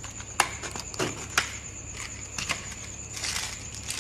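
Small sharp clicks and light rattles from a small plastic container of metal wire crimps being handled and a crimp picked out. A few separate clicks come first, then a quick cluster near the end, with a steady cricket trill behind.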